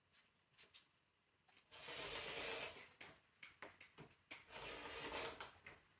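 Rotary cutter rolled through fabric along a ruler on a cutting mat: two cutting strokes of about a second each, with a few light clicks around them.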